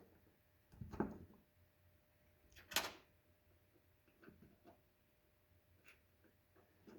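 Faint clicks and knocks of a small C-clip being pressed onto the chain guard roller's post, with one sharper click about three seconds in and a few light ticks after.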